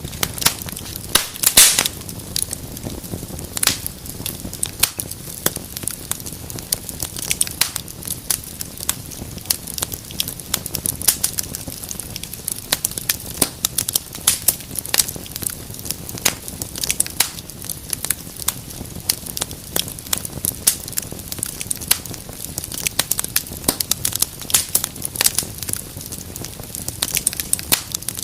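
Wood fire burning in a fireplace: steady low hiss with frequent sharp crackles and pops, a few louder snaps about one to two seconds in.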